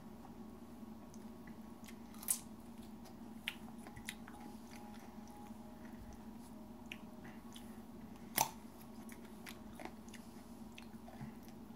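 Chewing and biting into raw hot chilli peppers, with crunchy bites and a few sharp clicks, the two loudest about two seconds and eight seconds in, over a steady low hum.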